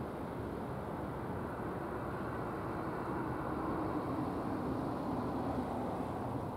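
Steady outdoor background rumble, swelling slightly a few seconds in and easing again near the end.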